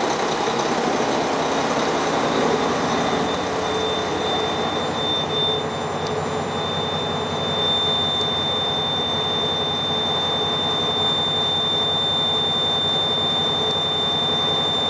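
Mack CHN613 truck's diesel engine idling steadily, heard from inside the cab. About four seconds in, a steady high-pitched warning buzzer comes in, and from about seven seconds on it holds firm over the engine.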